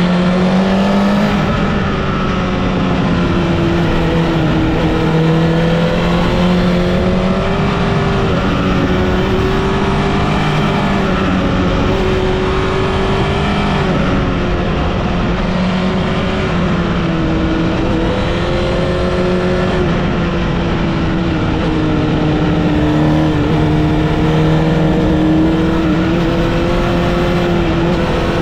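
Onboard sound of a Honda CBR1000RR (SC77) sport bike's inline-four engine, its pitch rising and falling again and again as it accelerates and eases off along a winding road, over steady wind and road noise.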